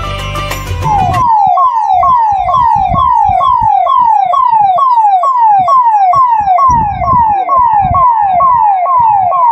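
A convoy vehicle's siren sounding a quick falling wail over and over, about three times a second, starting about a second in. Brief music plays before the siren starts.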